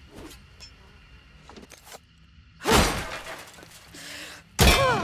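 Tanto knife blade sounds: two sharp metallic hits or swipes about two seconds apart, each with a bright ringing that falls in pitch as it dies away.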